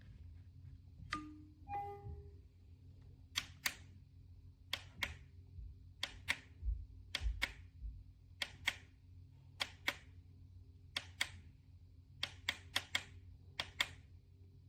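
A small button clicked over and over, each press a pair of sharp clicks for press and release, about once a second, with a quicker run of clicks near the end. About a second in there is a short two-note electronic beep, and a faint steady hum lies underneath.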